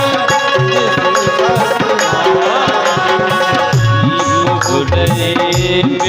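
Loud Indian folk-style music with a steady beat on tabla-like hand drums, the low drum strokes bending up and down in pitch, under a sustained melody.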